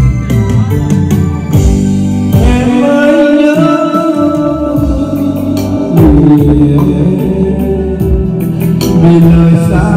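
Amplified karaoke played loud through a PA: a Vietnamese song with a backing track of drums, bass and guitar under a sung melody.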